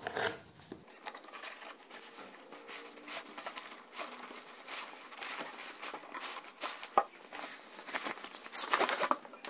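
Cardboard box being torn open by hand: crackling, tearing and rustling of the paperboard flap, with a sharp click about seven seconds in. The rustling gets busier near the end as the nylon tripod carry bag is pulled out of the box.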